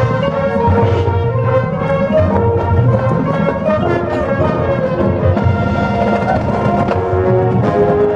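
High school marching band playing its field show: held brass chords over drums and timpani.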